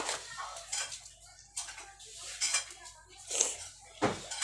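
A glass jar being handled: a few separate knocks and clinks of the glass. Faint voices are in the background.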